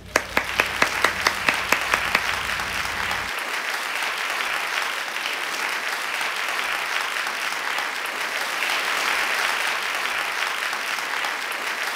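Hands clapping, about five sharp claps a second for the first two seconds, over steady crowd applause that carries on throughout.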